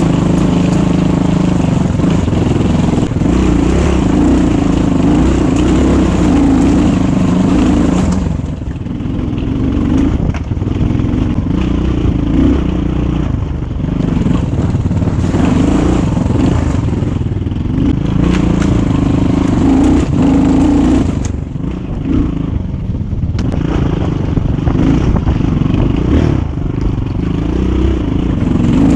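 GPX 250 motorcycle engine running under way on a ride, the throttle easing off briefly about eight seconds in and again about twenty-one seconds in.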